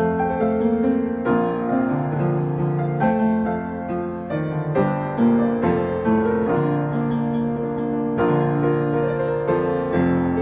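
Solo piano playing a slow piece: chords struck about every one to two seconds, with a melody over sustained low notes.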